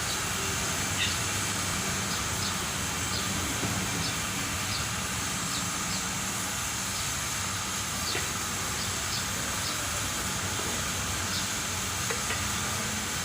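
Steady hiss over a low hum, with faint short chirps scattered through.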